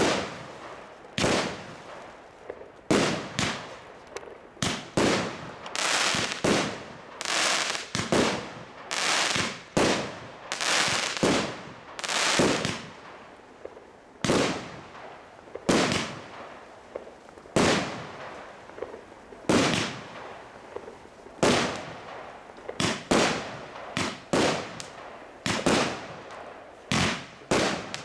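TROPIC TB105 25-shot fireworks battery (cake) firing shot after shot, about one a second. Each aerial shell bursts with a sharp bang that dies away over a second or so.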